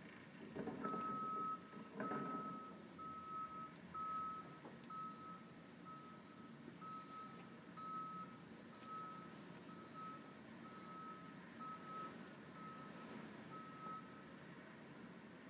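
A truck's backup alarm beeps steadily at one pitch, a bit more than one beep a second, over a low vehicle rumble, and stops about a second before the end. There are a couple of knocks near the start.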